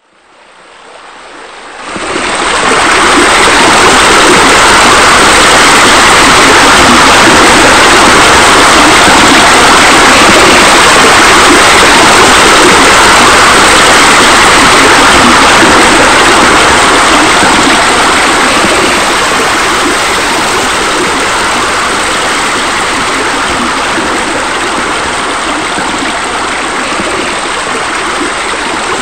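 Steady rush of flowing, splashing water, fading in over the first two seconds and easing off slightly in the second half.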